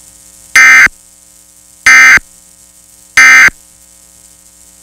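Emergency Alert System end-of-message code: three short, loud warbling digital data bursts about a second apart, marking the close of the test. A faint steady hum lies between the bursts.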